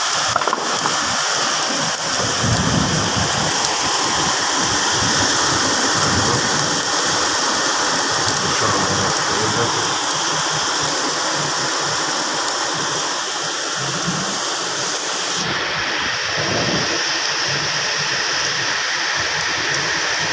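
Heavy rain falling steadily, a constant hiss of rain on surfaces.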